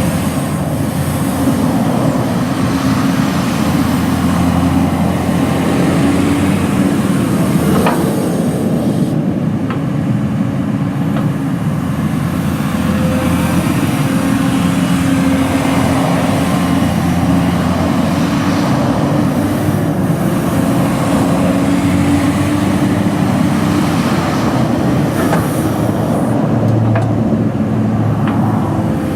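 Komatsu PC240LC-10 excavator's six-cylinder diesel engine running steadily, its note shifting slightly a few times.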